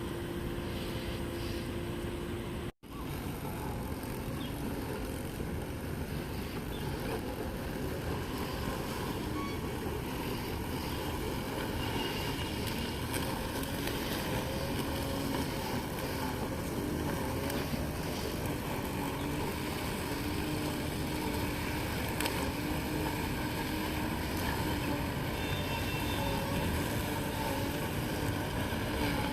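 Robotic lawn mower running steadily while it cuts grass: a continuous even motor hum with a faint tone. The sound drops out for an instant about three seconds in.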